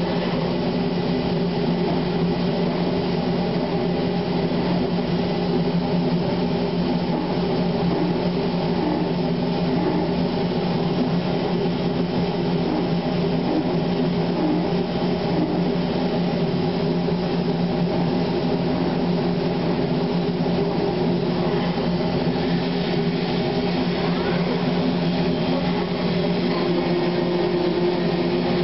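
Industrial machinery running steadily with a constant layered hum and whir, and no change in level. A slightly higher steady tone joins the hum near the end.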